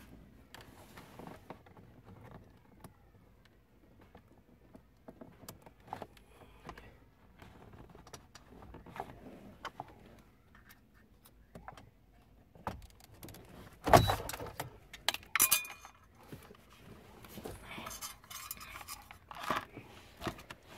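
Tools and wiring being handled under a car's dashboard: scattered clicks, light metal rattles and scraping, with one loud knock about two-thirds of the way through and a spell of rustling near the end.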